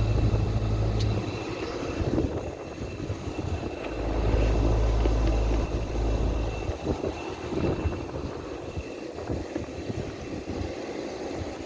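Running Carrier central air conditioner condenser: a steady low compressor hum that drops away about a second in, comes back around four seconds and fades out near seven seconds, over a continuous rushing of fan air.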